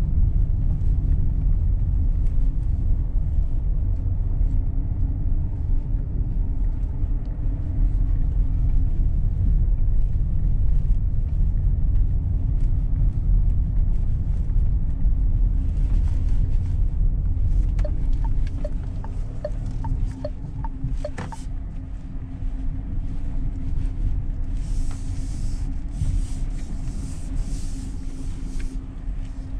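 Renault Rafale E-Tech full-hybrid SUV driving, heard from inside the cabin: a steady low road and tyre rumble with a faint steady hum. A run of short ticks sounds past the middle, and the rumble eases a little after that.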